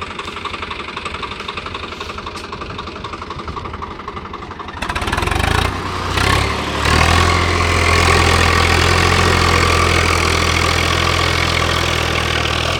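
Diesel tractor engine idling with a fast, even knocking beat, then revved up about five seconds in and held at a loud, steady high run.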